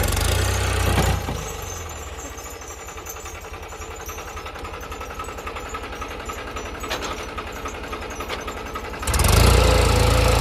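Heavy diesel engine running loud for the first second, dropping to a steady idle with an even low beat, then running loud again near the end.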